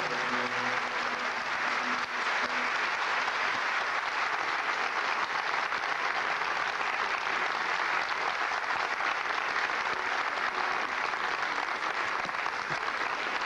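Concert audience applauding steadily, with the last held notes of the music fading out in the first second or two.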